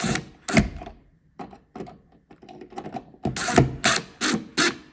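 Light switch being tightened with a screwdriver through the opening in a screwless switch plate's mounting frame, drawing it up against the wall. The tool and the plastic parts make a string of sharp clicks and knocks, most of them in the second half.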